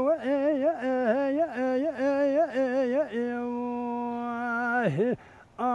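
A man singing unaccompanied in a full, ornamented folk style, with quick wavering turns on each syllable. About three seconds in he holds one long steady note, which ends in a sharp downward slide, then a brief breath pause before he goes on.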